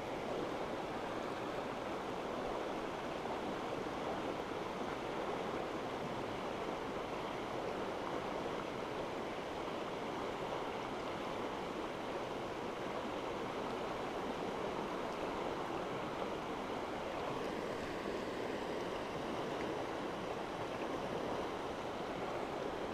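Chattahoochee River water rushing steadily past the bank. The river is rising, which the angler puts down to a water release from Buford Dam upstream.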